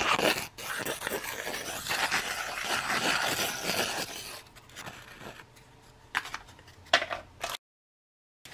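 Foil-laminate ration biscuit packets being torn open and handled: a dense, scratchy crinkling rustle for about four seconds, then fainter rustling with a couple of sharp crackles. It cuts off abruptly to dead silence near the end.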